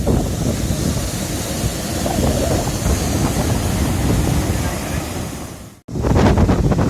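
Wind buffeting the microphone over surf washing on the shore, a steady rushing noise that cuts out for an instant near the end and comes back louder.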